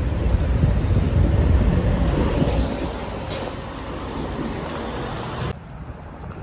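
Heavy low rumble of a semi-truck, loudest in the first two seconds, with a stretch of hiss and a click around the middle. The sound drops abruptly to a quieter background near the end.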